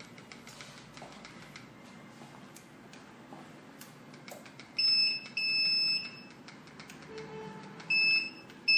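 A few faint clicks, then about five seconds in, the alarm system's electronic sounder starts beeping at a high pitch in short bursts: two beeps, a pause of about two seconds, then more beeps near the end. The beeping is the alarm going off after its gas and smoke detector is triggered.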